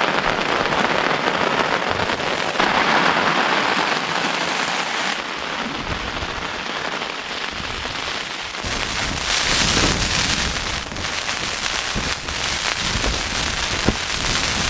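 Heavy, wind-driven rain drumming on a tent's flysheet in storm conditions, with deep gusts of wind buffeting from about six seconds in.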